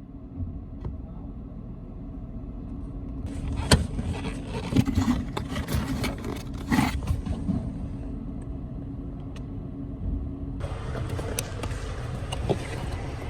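Car AC blower fan running, with irregular clicks and knocks over the air rush, then stepping up suddenly to a louder rush of air about ten seconds in. The noise is typical of something having fallen inside the blower.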